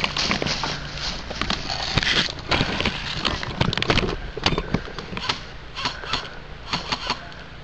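Footsteps and rustling gear as a player runs through dry grass, then sharp clicks of airsoft guns firing in short bursts of two or three shots.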